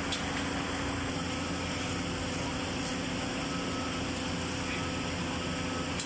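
Steady mechanical hum with hiss and a few faint steady tones.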